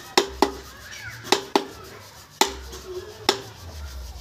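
Mallet tapping a slender steel carving chisel into a wooden workpiece: six sharp knocks, mostly in quick pairs, each with a short ring.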